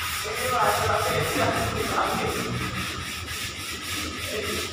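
Sandpaper rubbed by hand over a puttied wall in rapid, even back-and-forth strokes, the rough scratching of a skim coat being smoothed.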